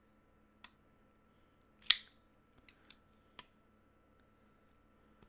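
Sharp metallic clicks from a flipper folding knife being worked in the hand, about five of them, the loudest about two seconds in.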